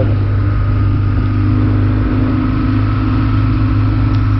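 BMW R1200GS boxer-twin engine running at a steady road speed, heard from the rider's own bike, with an even, unchanging pitch.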